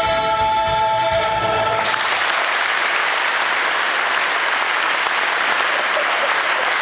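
Men's voices hold the final chord of a folk song until it cuts off about two seconds in; an audience then applauds steadily.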